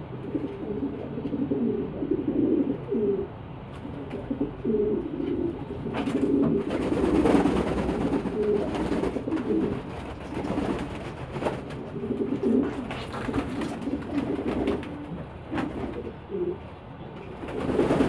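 Domestic pigeons cooing over one another throughout, with splashing and wing flaps from birds bathing in a shallow basin of water. The splashing and flapping are loudest from about six to nine seconds in and again near the end.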